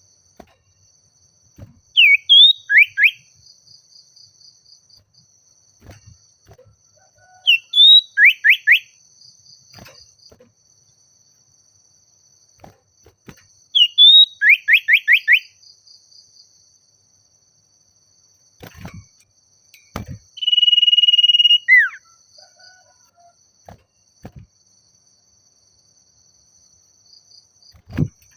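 Common iora (cipoh) singing its challenge call: three phrases about six seconds apart, each a short rising note followed by four or five quick downward-slurred whistles, then later a long steady whistle and a falling note. A faint steady insect trill runs high in the background.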